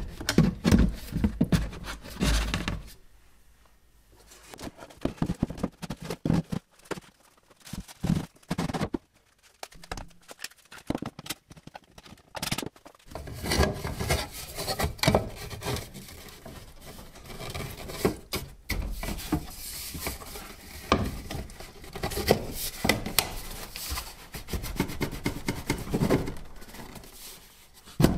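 PVC dust-collection pipe and a plastic wye fitting being handled and pushed together: irregular rubbing, scraping and knocks, with quiet pauses between them.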